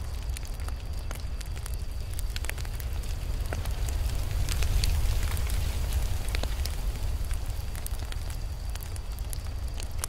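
Campfire burning: a steady low rumble with frequent sharp crackles and pops from the burning wood, growing busier and a little louder around the middle.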